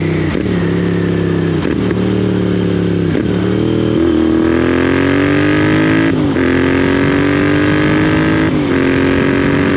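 Royal Enfield Interceptor 650's 648 cc parallel-twin running through Lextek slip-on exhausts while being ridden and accelerated. The exhaust note rises and drops briefly at each of several gear changes.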